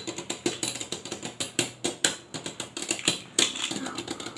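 Two Beyblade Burst spinning tops clashing and grinding against each other as they spin in a plastic stadium, making a rapid, irregular clatter of clicks with a few louder knocks.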